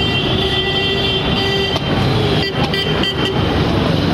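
Busy street traffic noise, with a steady high tone held for about three seconds and a few short knocks about two and a half seconds in.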